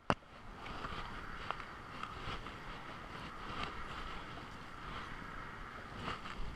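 Steady wind noise on the microphone over the rush of fast-moving tidal current below, with a sharp click right at the start and a few faint clicks later.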